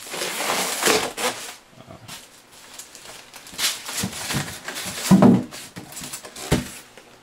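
Rustling and scraping of a subwoofer's cardboard and styrofoam packaging being handled, with scattered knocks and a heavier thump about five seconds in.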